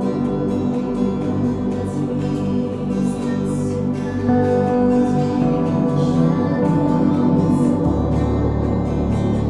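Background music: sustained instrumental chords with plucked guitar and some singing.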